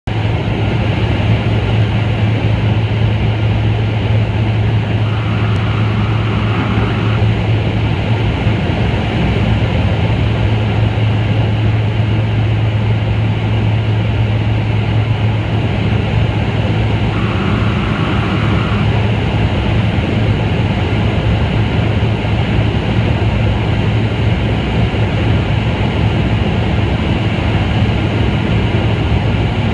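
Steady, loud engine drone of a small sightseeing aircraft heard from inside the cabin in level flight, with a constant low hum under a broad rushing noise.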